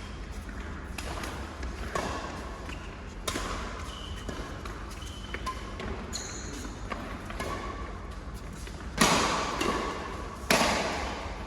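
Badminton rally: sharp racket hits on the shuttlecock, the loudest two about a second and a half apart near the end, with short high squeaks in between.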